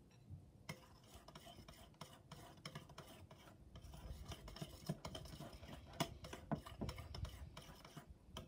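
Metal spoon stirring slime in a glass bowl: faint scraping with irregular light clicks of the spoon against the glass. The clicks start about a second in and grow a little louder in the second half.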